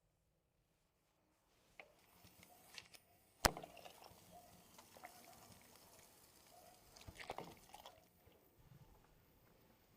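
A few sharp knocks and clicks of cookware and utensils being handled over a faint background, the loudest knock about three and a half seconds in and a small cluster around seven seconds.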